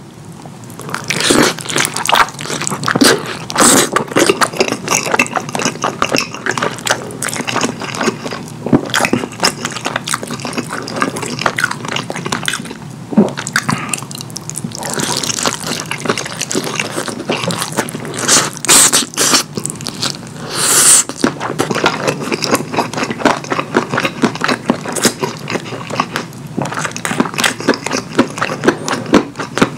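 Close-miked wet chewing and smacking mouth sounds of someone eating saucy curry food: a dense run of sticky clicks with occasional louder bites.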